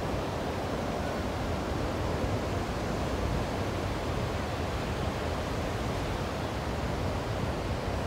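Ocean surf washing ashore: a steady rushing noise without separate breaking crashes.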